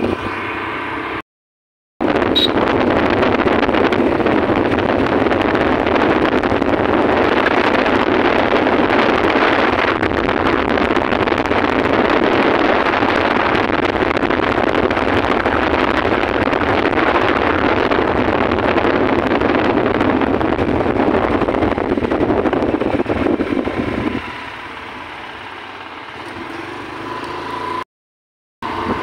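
Wind buffeting the microphone while riding a two-wheeler along a road, a loud steady rush with the vehicle's running noise beneath it. It drops to a quieter hum about 24 seconds in, and the sound cuts out to silence twice, briefly.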